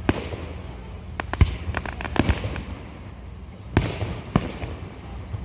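Fireworks display shells bursting: a string of sharp bangs, with a quick cluster of them around two seconds in and two more near the end.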